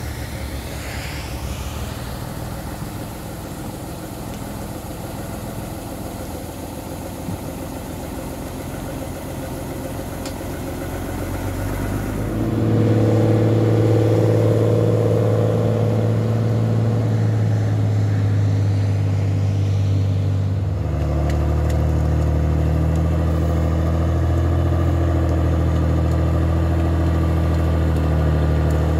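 Homemade forestry forwarder's diesel engine running steadily. It is moderate at first, then much louder and stronger about halfway through, then settles to a lower, even pitch near the end.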